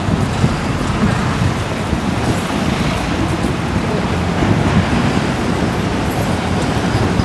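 Wind buffeting the microphone in a loud, uneven low rumble, over the steady noise of a city street with traffic.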